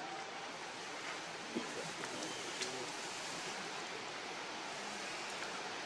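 Steady outdoor background hiss, with a few faint clicks.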